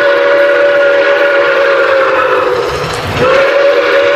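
Steam locomotive whistle blowing two long blasts, several tones sounding together over a hiss of steam. There is a short break about three seconds in.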